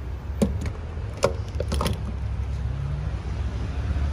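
Refuelling a car at a gas pump: a few sharp clicks in the first two seconds over a low, steady rumble.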